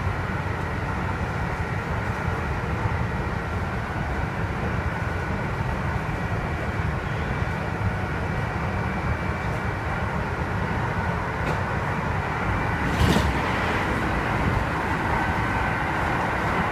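Kintetsu 2610 series train (set X25) running at speed, heard from inside the car: a steady low rumble with thin high-pitched tones mixed in, the set's abnormal running noise. One sharp click about 13 seconds in.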